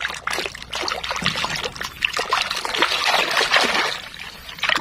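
Water splashing and trickling as a hand swishes and scrubs a muddy toy truck under the surface of shallow water, with many small splashes in quick succession.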